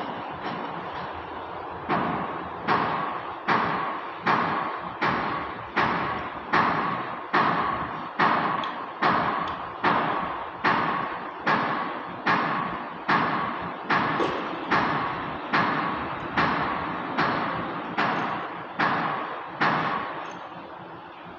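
Repeated hammer blows in a steady rhythm, a little more than one a second, starting about two seconds in and stopping shortly before the end.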